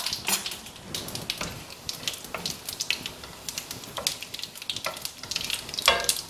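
Hot ghee and oil sizzling and spitting in a stainless steel pan with tempering spices (mustard seeds, cumin, asafoetida and turmeric), stirred with a wooden spatula; a brief louder sound near the end.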